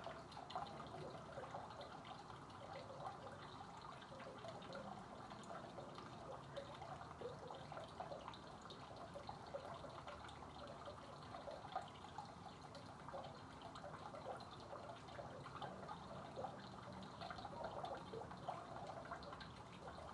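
Faint water trickling and dripping from a pipe spout in a stone wall into a shallow pool, a steady stream of small splashes.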